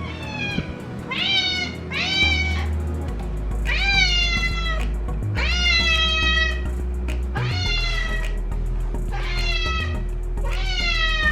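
Domestic cat meowing repeatedly: about eight drawn-out meows, each falling in pitch, over steady background music.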